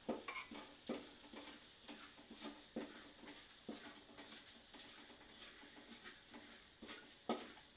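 Minced garlic frying gently in oil in a wok: a faint sizzle with scattered crackles, and the scrape and tap of a metal spatula stirring it, with one sharper tap near the end. The garlic is turning light golden and is almost done.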